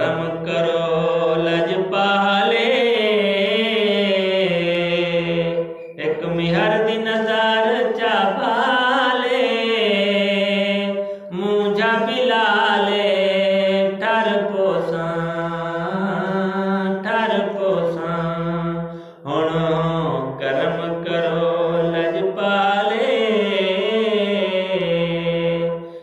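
A man's solo voice singing a Saraiki naat, a devotional poem in praise of the Prophet, in long melismatic phrases. He takes short breaths about 6, 11 and 19 seconds in.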